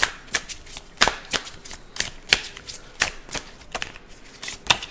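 A deck of oracle cards shuffled by hand: a run of irregular sharp clicks and slaps, about three to four a second, as the cards are split and struck together.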